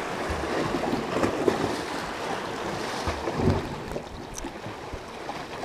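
Sea waves washing against shore rocks, a steady rush, with wind on the microphone.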